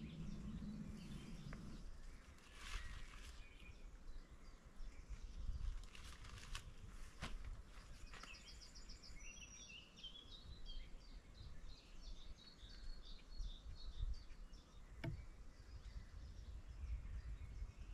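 Several songbirds chirping and trilling, faintly, with a brief low buzz in the first two seconds and a low rumble underneath.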